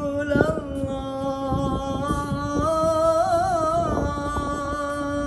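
A man singing a sholawat, holding one long note with a short wavering ornament about three seconds in.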